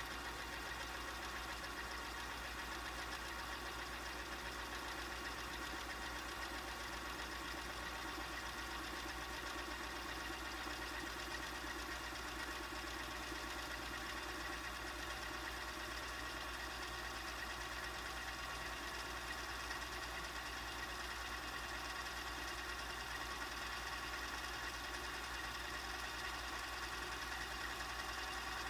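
A four-head VHS VCR rewinding a tape: the transport motor and spinning reels make a steady whir with a few thin, constant tones.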